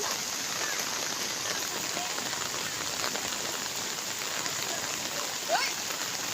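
Steady hiss of water with a fine pattering texture, from rain and floodwater on a flooded river. About five and a half seconds in, a brief rising squeak stands out.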